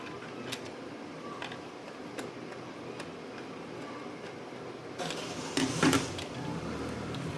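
A plastic telephone handset being taken apart by hand: scattered light clicks and small knocks, then a louder scraping rustle about five seconds in.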